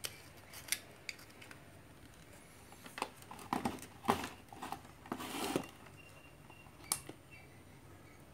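Scattered light clicks and short scrapes of small tools and a circuit board being handled, about a dozen in all, with a busier cluster in the middle.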